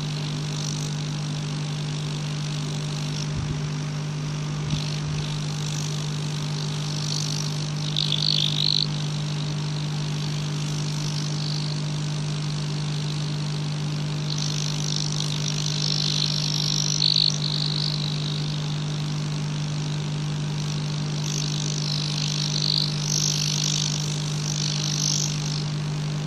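Steady low hum of a hot-air heater's fan blowing under a phone circuit board to melt the solder on the charging socket, with patches of higher hiss now and then.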